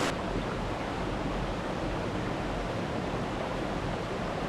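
Mountain stream rushing: a steady, even noise of running water.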